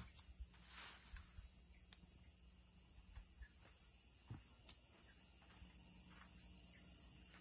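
Steady, high-pitched chorus of insects, growing slowly louder, with a few faint short taps.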